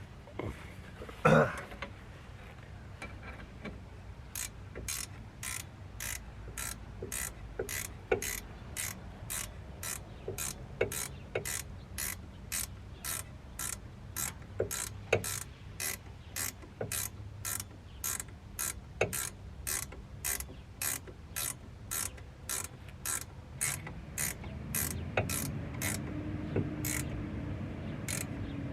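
Hand ratchet wrench clicking in steady, even strokes, about two clicks a second, as a bolt is run in. A single loud knock comes about a second in, and a low hum rises near the end.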